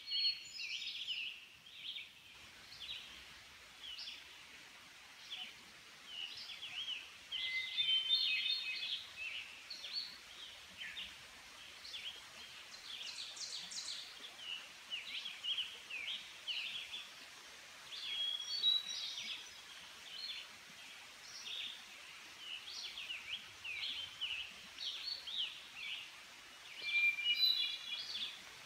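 Several songbirds singing in woodland, a continuous mix of overlapping chirps and short trilled phrases.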